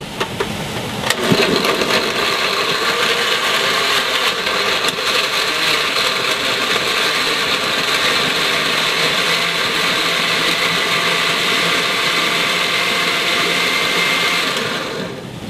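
Countertop blender running on pieces of tomato with a little water, puréeing them into a salsa. It starts about a second in, runs steadily, and cuts off just before the end.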